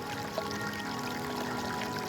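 Flowing water pouring and trickling, layered with soft sustained background music.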